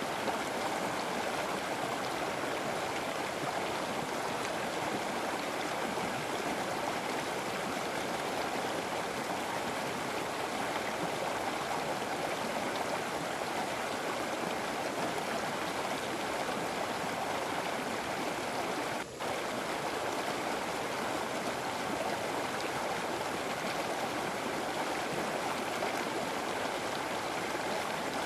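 River water flowing and rushing in a steady, even stream. The sound dips briefly about two-thirds of the way through.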